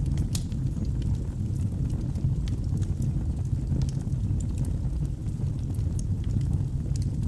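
Wood fire burning in a fireplace: a steady low rumble with irregular sharp crackles and pops from the burning logs.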